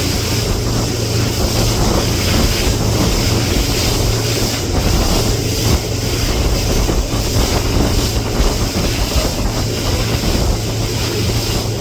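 Speedboat engine running steadily under way, a constant low hum, with water rushing past the hull and wind buffeting the microphone.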